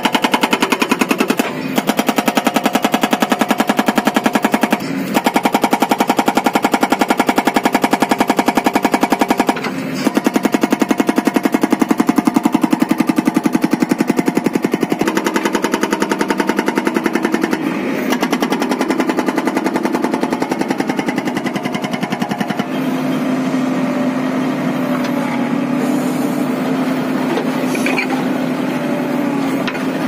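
Hydraulic rock breaker on a JCB 3DX backhoe loader hammering its chisel into rock in a rapid, continuous stream of blows, stopping briefly three times in the first ten seconds. In the last third it goes quieter and steadier, with the backhoe's engine hum more to the fore.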